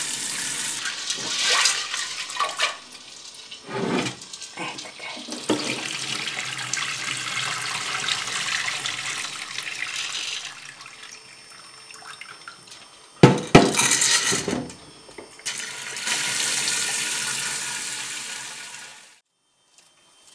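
Kitchen tap water running into a stainless steel pot of dried white beans as they are rinsed, with the beans swirled and the water poured off. There is a sharp metallic clatter a little past the middle, then the tap runs again and is shut off shortly before the end.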